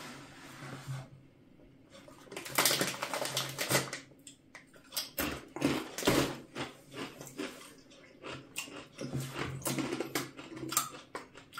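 Irregular crackling and crunching: the bag of Takis rolled tortilla chips being handled and the hard chips being bitten and chewed.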